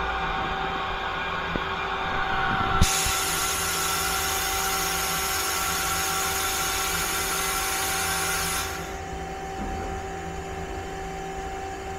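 Mazak CNC lathe running with a steady hum. About three seconds in, a loud high hiss starts with a click and runs for about six seconds before dropping away, leaving the hum.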